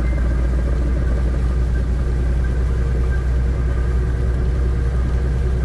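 Steady low rumble of a diesel truck's cab at highway speed, with an even hiss over it and no changes.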